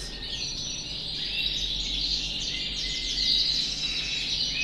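Several canaries singing at once: overlapping high trills, chirps and whistles.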